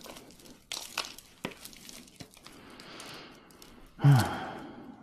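Costume jewelry being handled and sorted: scattered light clicks of beads and metal pieces with a soft rustle, then a short voice-like sound falling in pitch, the loudest thing, about four seconds in.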